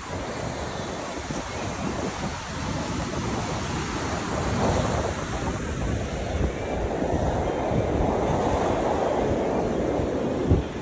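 Sea waves breaking and washing on the shore, the surf swelling louder about halfway through, with wind rumbling on the microphone. A brief low thump near the end.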